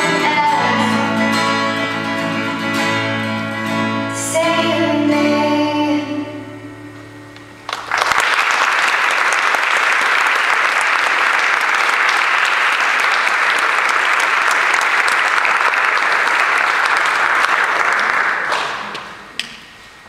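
A girl's singing voice and strummed acoustic guitar finish a song, the last chord fading out over a couple of seconds. About eight seconds in, the audience breaks into applause that lasts about ten seconds and dies away near the end.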